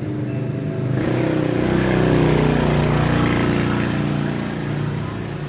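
A motor vehicle passing by: its engine sound swells to a peak about two seconds in, then fades away.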